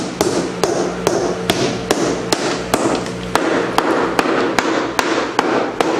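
Rubber mallet beating steadily on the plywood wall of a concrete-filled mold, about two and a half blows a second. The blows tamp and vibrate the freshly poured concrete so that it settles into the mold.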